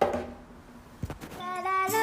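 A sharp thump at the start that dies away quickly, a click about a second in, then a new tune with bright plucked, tinkling notes starts up at about a second and a half.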